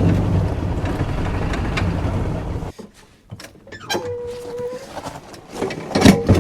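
Yamaha gas golf cart engine running, then shut off abruptly about two and a half seconds in. After that come scattered clicks and knocks, a short steady tone, and a louder clunk near the end.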